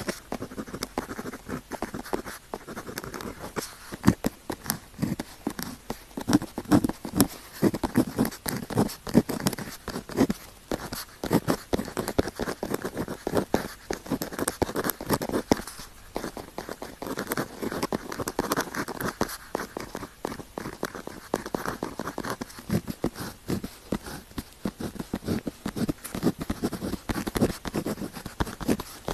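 A pen tip writing on paper close to the microphone: continuous scratchy strokes with frequent small taps as the pen touches down and lifts.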